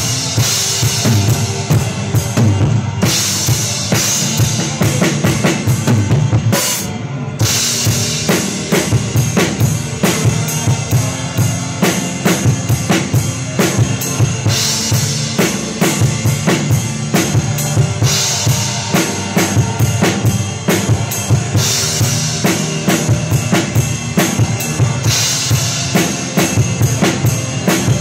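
Drum kit played live in a worship band, heard close up from behind the kit: a steady beat of kick and snare with bright cymbal washes in several stretches, over the rest of the band.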